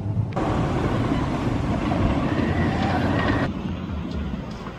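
Roller coaster train running over a wooden coaster's steel-topped track: a loud, steady rumble that starts suddenly just after the start and drops away abruptly about three and a half seconds in, leaving a quieter, more distant rumble.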